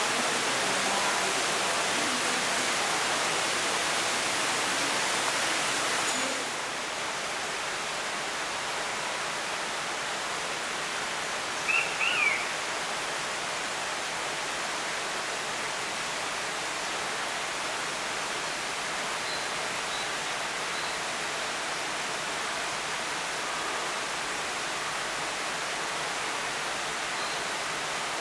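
Steady rushing background noise, a little quieter after a cut about six seconds in. A small bird gives two short, high chirps about twelve seconds in.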